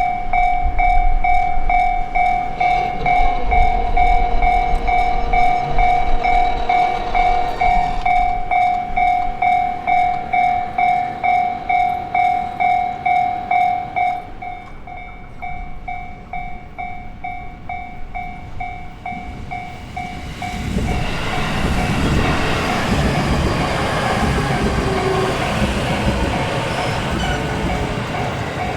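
Japanese level-crossing alarm ringing its electronic bell in steady, even pulses, loud at first and dropping to a quieter ring about halfway through. Near two-thirds of the way in, a JR Nanbu Line electric train runs through, its wheels and motors rising to a loud rumble that lasts to the end.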